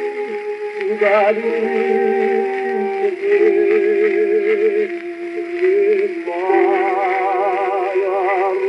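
An old gramophone record playing a song: long held sung notes with heavy vibrato, thin in tone with little bass.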